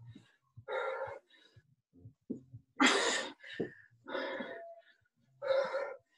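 A person breathing hard from exercise exertion, close to the microphone. There are four forceful out-breaths about every second and a half, the loudest about three seconds in.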